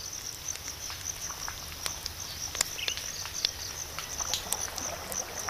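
Mangrove mudflat ambience at low tide: a steady high insect buzz with many scattered small clicks and ticks.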